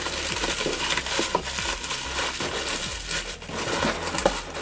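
Plastic bubble wrap crinkling and rustling as it is pressed into a small cardboard box, with light scraping and clicks from the box's flaps being handled.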